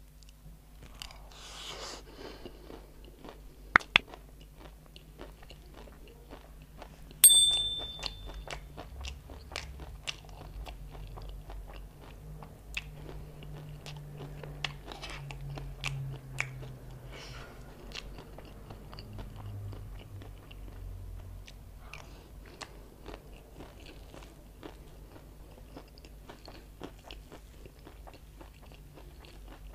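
Close-up crunchy chewing of chatpate, dry crushed instant noodles with peanuts and onion, a dense run of small crunches. About seven seconds in the metal spoon strikes the plate with a loud ringing clink, and two sharp clicks come just before it, near four seconds in.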